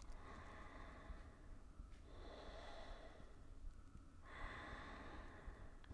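Faint, slow breathing: about three long, unhurried breaths of some two seconds each, taken while holding a seated forward fold.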